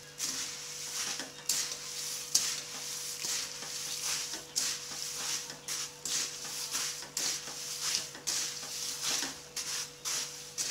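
Puffed rice and peanuts being stirred and tossed with a spoon into a spiced oil tempering in a pan. It sounds as repeated crisp rustling and scraping strokes, roughly one to two a second.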